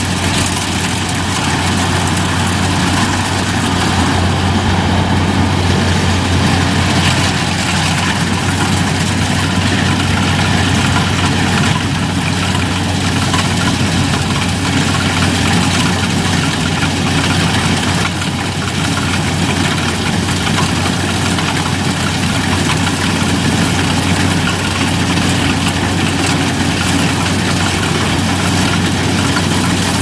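Kubota DC-95GM combine harvester running steadily with its unloading auger running, grain pouring from the spout into a truck bed; a constant low engine hum under an even mechanical rush.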